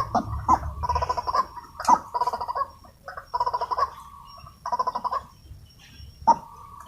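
White-breasted waterhen calling: a run of rapidly pulsed, croaking phrases with short gaps between them, and a thin high steady tone coming and going alongside.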